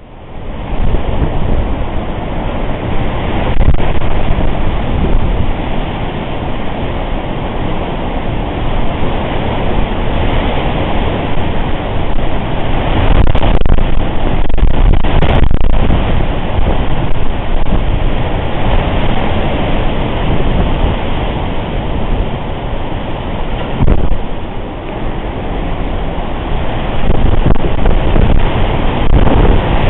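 Hurricane-force wind buffeting the microphone: a loud, continuous rushing rumble that surges and eases, with a couple of brief knocks about halfway through.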